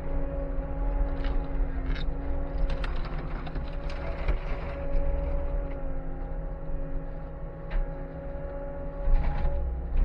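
Skid steer running under load, its engine rumbling under a steady hydraulic whine, while the grapple scrapes along the ground and picks up old wire mink cages, with metal clattering and knocking several times.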